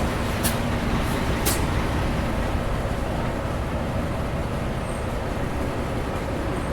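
A city bus's engine running steadily over the rumble of road traffic, with two short sharp clicks about half a second and a second and a half in.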